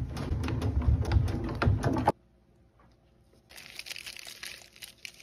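Rolling mill running with a low rumble and rapid clicking as a strip of indium is flattened between its rollers; the sound cuts off abruptly about two seconds in. After a short pause, thin, soft indium foil is crinkled and crumpled by hand, giving a light crackling.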